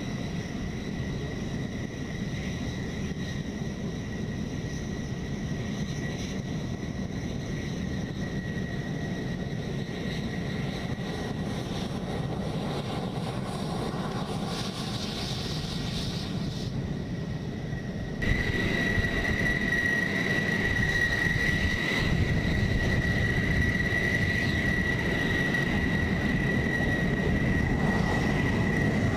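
F-16 jet engine running: a steady high whine over a broad rumble. About two-thirds of the way through the sound suddenly gets louder.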